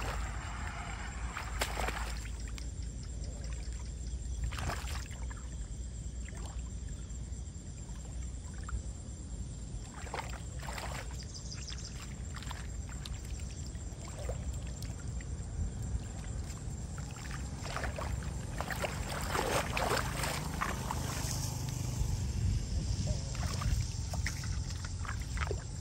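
Hands sloshing and splashing in shallow floodwater while clearing a blocked street drain: scattered splashes and drips, busiest about three-quarters of the way through, over a steady low rumble.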